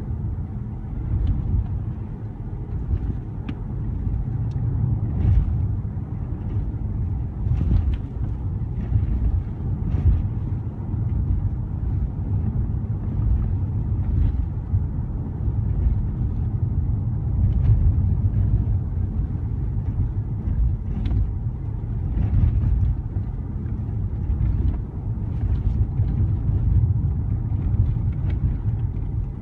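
Interior of a car driving with the windows closed: a steady low road and engine rumble, with small scattered clicks and rattles from the cabin and road bumps.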